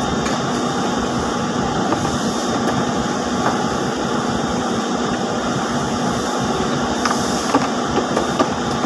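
Steady din of spinning-mill machinery running, with a constant hum and a few light clicks near the end.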